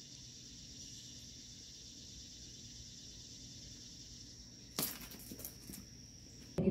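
A faint, steady, high-pitched insect chorus carries on outdoors, with one sharp click about five seconds in, followed by a few fainter ticks.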